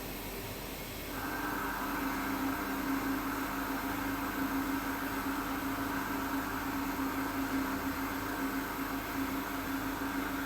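CNC milling machine running steadily; about a second in it grows louder as a steady hum and a hiss come in and hold, as the spindle takes up the cut.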